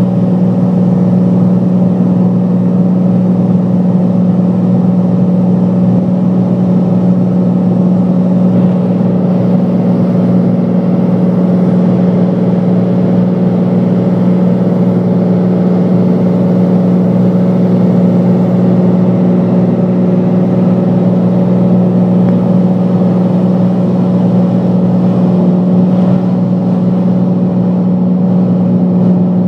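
Aircraft engine droning steadily, heard from inside the cabin: one strong low hum with overtones that holds unchanged throughout.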